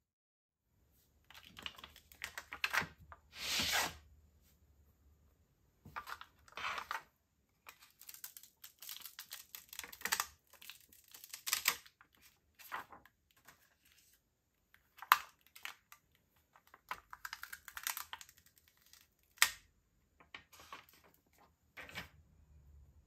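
Clear plastic sheet being peeled off a fused Perler-bead piece and handled, crinkling and crackling in irregular bursts, with a few sharp clicks.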